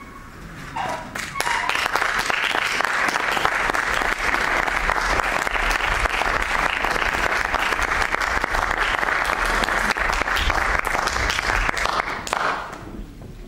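Theatre audience applauding at the close of a scene as the curtain comes down. The clapping builds up over the first second or so, holds steady, and dies away shortly before the end.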